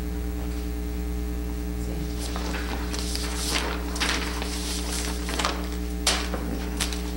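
Steady electrical mains hum with a ladder of overtones. From about two seconds in it is joined by irregular scuffing and rustling noises.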